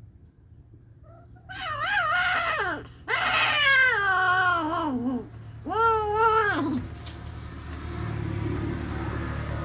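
Cats yowling during mating: three long, wavering caterwauls, the middle one sliding down in pitch. A low steady rumble comes in near the end.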